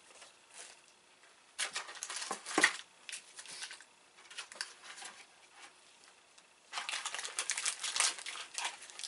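Plastic KitKat wrappers crinkling as they are handled, in two spells of rustling: one about a second and a half in and a longer one near the end.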